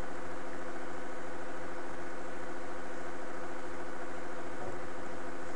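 Steady mechanical hum made of several fixed tones, like a motor or fan running without change, with a faint click near the end.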